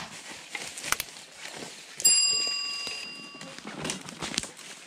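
A bell-like ding sounds once about two seconds in and rings out for about a second and a half: the notification-bell sound effect of a subscribe animation. Under it, footsteps crunch through dry leaf litter.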